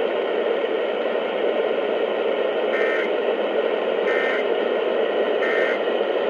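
Steady radio static hiss, broken in the second half by three short warbling data bursts about 1.3 seconds apart: the Emergency Alert System end-of-message (EOM) code, sent three times to close the test.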